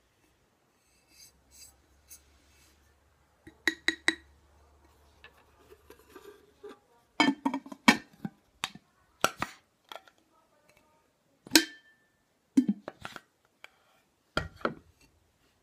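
A drinking glass and its clear plastic lid handled on a wooden table: scattered clicks, taps and knocks in short clusters, with one brief ringing clink of glass about two-thirds of the way through.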